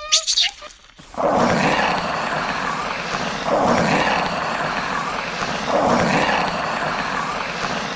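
An animal's rough, drawn-out calls, rising and falling in three long swells about two seconds apart, after a second of short high-pitched calls at the start.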